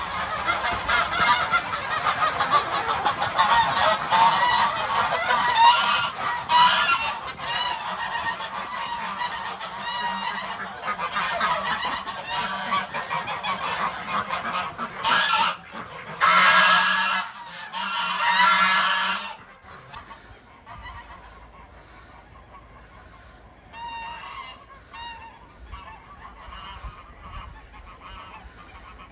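A flock of domestic geese honking in a loud, dense chorus. It drops off suddenly about nineteen seconds in, leaving scattered fainter calls.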